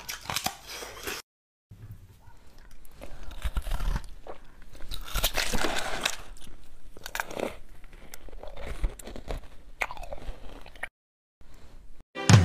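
Close-up crunching as a person bites and chews hard, crunchy food, irregular crisp crunches with short pauses between bites.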